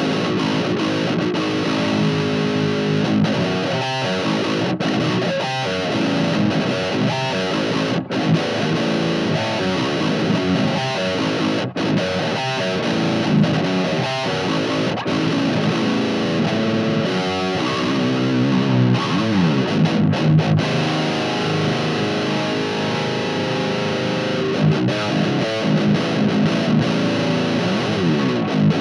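Seven-string electric guitar with active Fishman Fluence pickups playing a distorted riff through a 2x10 cabinet loaded with Celestion 10-30 speakers, recorded as a tone sample of the cab for heavy, djent-style playing.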